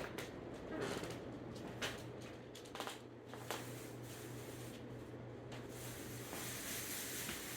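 Ceiling fan running on high: a steady low motor hum with a rush of moving air, a few scattered light clicks, and a hiss that swells near the end.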